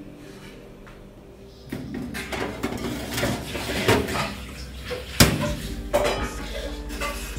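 Metal baking tray clattering and scraping as it is slid onto the wire rack of a small electric oven, with sharp clicks near the end as the oven's control knob is turned.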